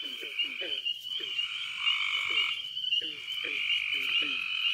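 Frogs calling at a pond at night: a run of short, falling croaks, several a second, over a steady high-pitched drone.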